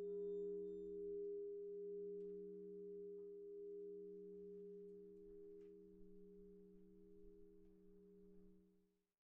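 The hum of a bronze church bell dying away after ringing: a few deep, steady notes fading slowly with a gentle waving in loudness, then cut off abruptly near the end. The notes fit the tower's largest bell, the 2003 Feniks Žalec bell tuned to e'.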